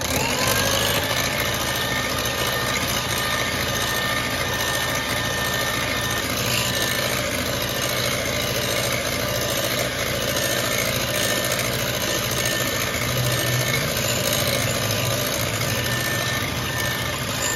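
Philips electric hand mixer whirring up to speed and then running at a steady whine, its wire beaters whisking foamy egg whites in a glass bowl as sugar is added for a meringue.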